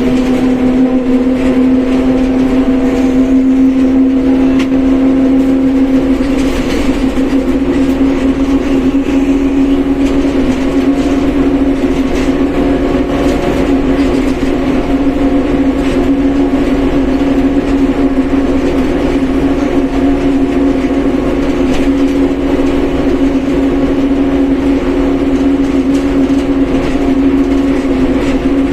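Mercedes-Benz OF1721 BlueTec 5 bus under way, its differential giving a steady whine over the engine and road rumble. The whine sags a little in pitch about six seconds in and climbs back a few seconds later.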